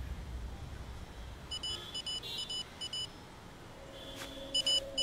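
Short electronic beeps in quick pairs, four pairs in a row from about a second and a half in and more near the end, with a low steady hum coming in partway through.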